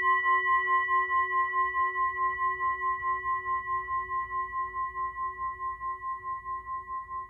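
A sustained, bell-like ringing tone with a steady rapid wobble, several pulses a second, slowly fading away.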